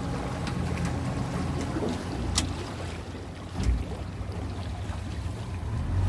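Motorboat engine running steadily with a low hum under water and wind noise. A sharp click comes about two and a half seconds in, and a short low thump a second later.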